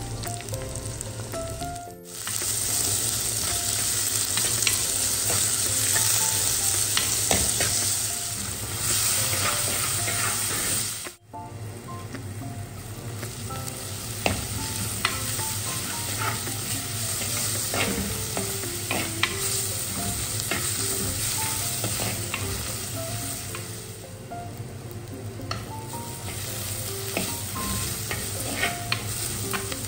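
Sliced onions, shallots and curry leaves sizzling in hot oil in a clay pot, stirred with a steel spoon that clicks and scrapes against the pot. The sizzle breaks off abruptly twice and is loudest in the first third.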